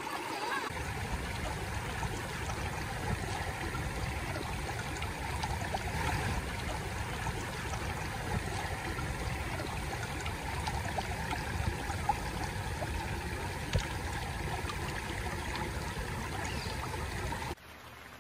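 A shallow rocky stream rushing and gurgling over boulders, a steady sound of flowing water. Near the end it cuts abruptly to a quieter, steady hiss.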